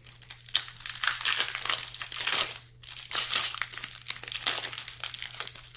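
Foil wrapper of a Magic: The Gathering booster pack crinkling as it is pulled and torn open by hand, with a short lull about halfway.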